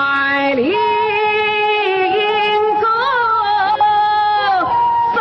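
A woman singing a Yue opera aria: a slow, drawn-out phrase held on one long, ornamented note that bends and wavers, breaking off near the end before the next phrase begins.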